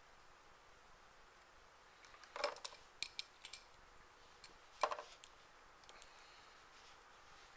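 Small metal parts and hand tools clicking and clinking on a workbench during helicopter rotor-head assembly: a cluster of sharp clicks a couple of seconds in, and another, louder one just before the middle.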